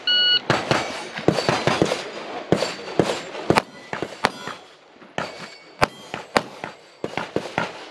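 Shot timer beep at the start, then a string of pistol shots fired in quick groups with short pauses between them: a shooter running a timed action pistol stage.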